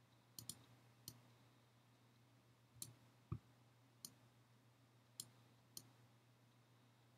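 Scattered sharp clicks of a computer mouse button, about seven in all with one quick double click near the start, over a faint steady hum. There is one soft low thump partway through.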